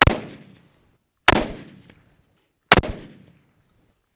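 Three rifle shots from a Mossberg bolt-action rifle firing True Velocity polymer-cased ammunition, about a second and a half apart. Each sharp crack is followed by a short echo that dies away.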